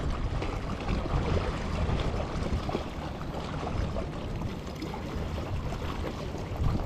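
Wind buffeting the microphone in an uneven low rumble, over small sea waves washing and splashing against the rocks at the water's edge.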